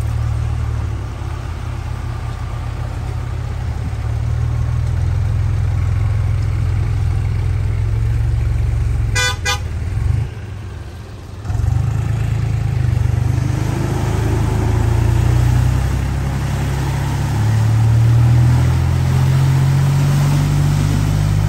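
Steady low vehicle engine rumble, broken about nine seconds in by a short car-horn toot. After a brief drop, an engine runs and revs, rising and falling in pitch twice, as an SUV drives through deep mud.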